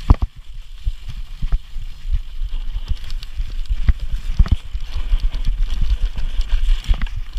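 Mountain bike rattling and knocking as it rolls down a rough dirt trail, with irregular sharp knocks as the wheels hit bumps and roots, over a low rumble of wind and vibration on the camera's microphone.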